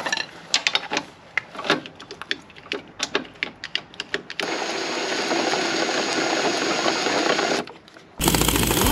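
Metal clicks and clacks of a hand grease gun being fitted and pumped into a camper trailer's stabiliser leg, then a power drill running steadily for about three seconds, winding the leg to work the fresh grease through its gears. Music starts near the end.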